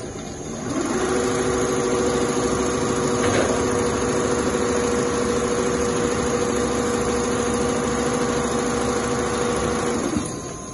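Two-head Richpeace CNC sewing machine stitching leather, running at a steady speed with a fast, even chatter and a steady hum. It starts about half a second in and stops near the end.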